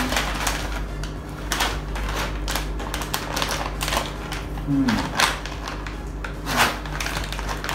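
Plastic snack packet crinkling and crackling as it is handled and torn open by hand, a dense run of sharp, irregular crackles.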